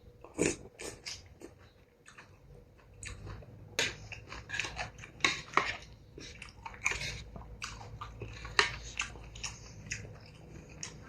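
Close-miked chewing and mouth sounds of a person eating beef noodle soup: irregular wet smacks and clicks, sparse at first and coming thick and fast from about three seconds in.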